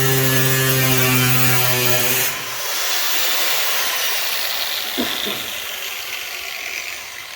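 Angle grinder with a cutoff wheel running as it plunge-cuts into the van's sheet-steel body panel, a steady motor hum that stops abruptly about two seconds in; the wheel then winds down with a fading, falling whine and a brief squeak. The owner says afterwards that the grinder needs a new cord.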